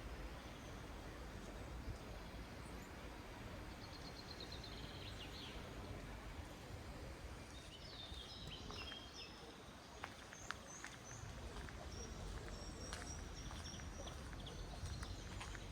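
Small birds chirping in short, quick trills over a steady outdoor background noise, with a few faint clicks about two-thirds of the way through.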